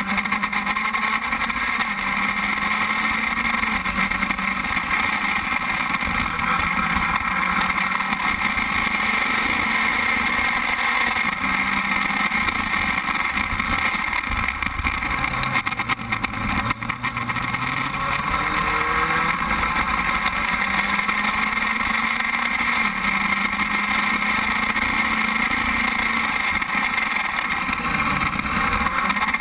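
Open-wheel FS2.0 race car's engine running, heard from the onboard camera, its pitch drifting gently up and down over a constant hiss.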